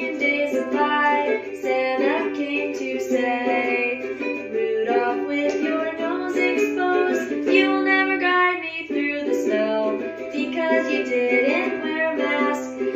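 Ukulele strummed in a steady rhythm, playing chords with no lyrics sung.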